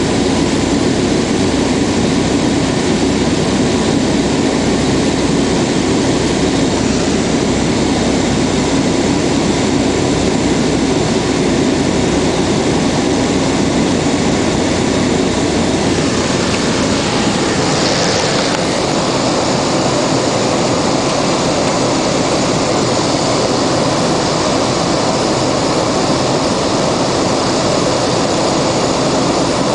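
Cessna Caravan's single turboprop engine and propeller heard from inside the cabin on approach to landing: a loud, steady drone whose tone shifts slightly about halfway through.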